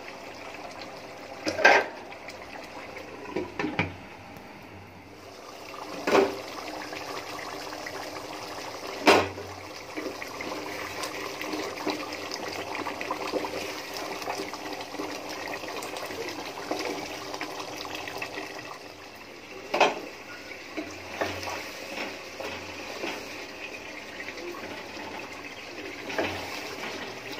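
Thick beef curry bubbling and simmering in a nonstick pot, with a spatula stirring it and knocking sharply against the pot several times.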